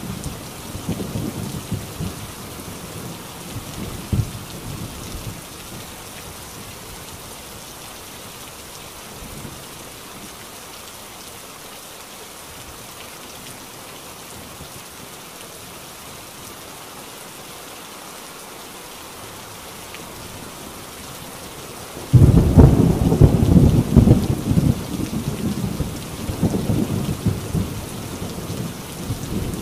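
Heavy rain falling steadily on a tin roof, with thunder: a rumble dies away over the first few seconds, then a sudden loud thunderclap about three-quarters of the way through rolls on as rumbling.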